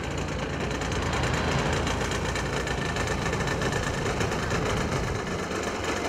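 Large-scale RC Piper Cub model's engine idling steadily as the plane is held on the runway, swelling slightly about a second in.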